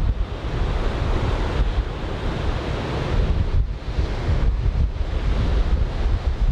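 Strong wind buffeting the microphone with an uneven low rumble, over the steady wash of large breaking surf from a typhoon swell.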